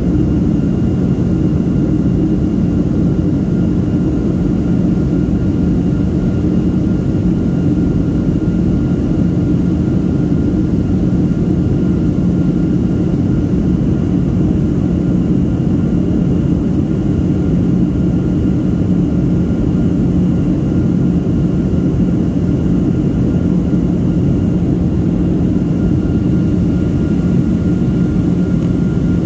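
Cabin noise of a Southwest Airlines Boeing 737 in descent, heard inside the cabin beside the engine: a steady rumble of jet engine and airflow with a faint high whine.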